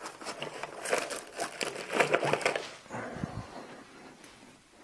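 Rustling and small clicks of things being handled, close and irregular, busiest in the first three seconds and fading off near the end.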